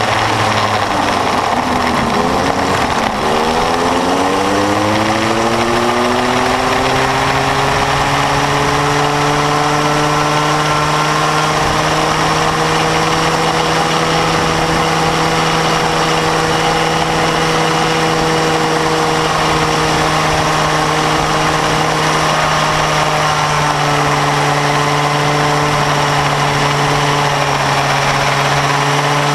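Small bambino go-kart engine heard from on board the kart while it laps. The engine note drops sharply about two to three seconds in, then climbs steadily over several seconds and holds high, with a slight dip later on.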